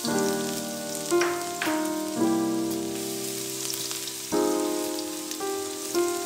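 Minced garlic sizzling in hot oil in a wok, a steady hiss. Louder background piano music plays over it, a new note or chord about every second.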